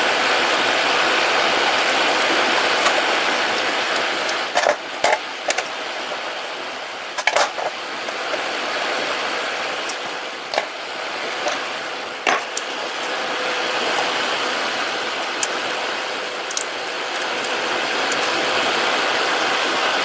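Scattered sharp clicks and taps of hookup wire and needle-nose pliers against solder lugs on a metal panel, a small cluster about five seconds in and single ones later, over a steady hiss.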